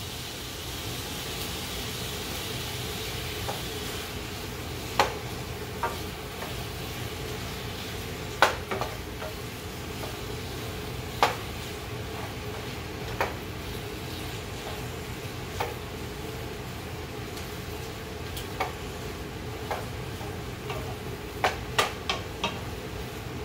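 Diced chicken sizzling steadily in olive oil in a skillet, with a wooden spoon stirring it and knocking against the pan every few seconds. Near the end comes a quick run of four knocks.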